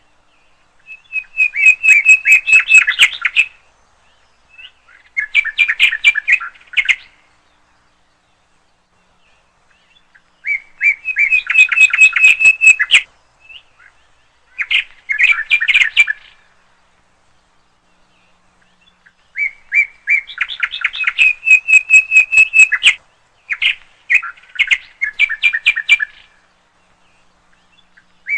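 A songbird singing in phrases of rapid repeated chirping notes, each phrase lasting two or three seconds, with gaps of a few seconds between them; about six phrases, coming roughly in pairs.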